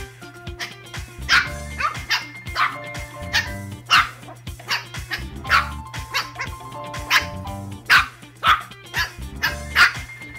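Two-month-old Shih Tzu puppies barking and yipping in short, high, repeated barks as they play-fight, over background music.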